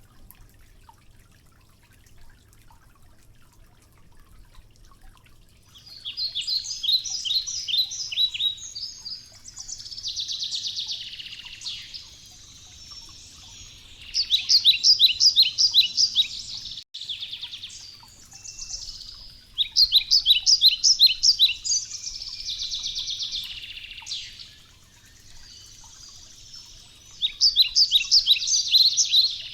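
A songbird singing: four phrases of rapid, repeated high notes, each running into a buzzier trill, the first about six seconds in and then one every six or seven seconds.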